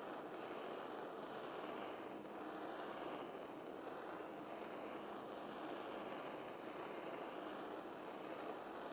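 Butane kitchen torch burning with a steady, unbroken hiss of gas and flame.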